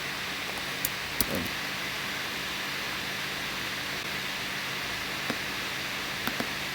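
Steady hiss with a faint low hum, broken by a few short sharp clicks: two about a second in and three more in the second half.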